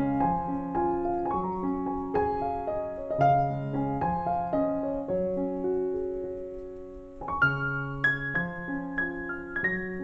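Background piano music: a calm melody of single notes over held lower chords, moving higher in the last few seconds.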